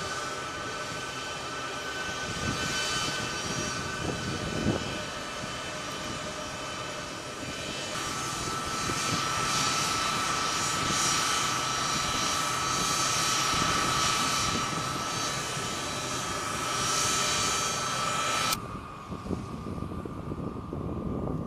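Large jet aircraft's turbofan engines running with a steady whine, several high tones over a rushing noise. The pitch of the whine jumps abruptly about a third of the way in, and the sound drops suddenly to a quieter, lower rush near the end.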